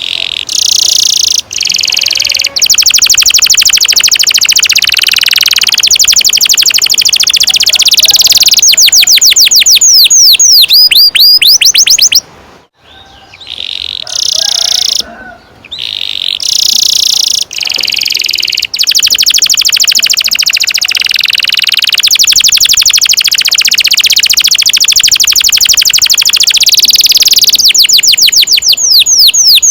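Domestic canary singing long rolled trills: fast repeated notes held for many seconds at a stretch, twice, broken by short pauses and runs of quick sweeping notes.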